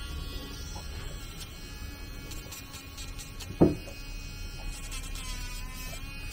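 Corded rotary pet nail grinder running with a steady high whine while it grinds a French bulldog's claw; its pitch wavers about five seconds in as it presses on the nail. A brief louder noise about three and a half seconds in.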